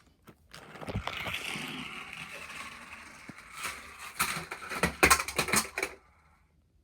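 A small toy car's electric motor whirring as it runs, followed by a quick series of clattering knocks as pieces of a homemade Rube Goldberg contraption hit and tumble, loudest about five seconds in.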